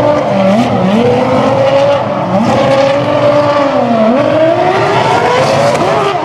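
Formula One car's Cosworth V8 running hard at close range, its pitch repeatedly dropping and climbing as the driver lifts and gets back on the throttle through slow turns, with a longer drop and rise about four seconds in.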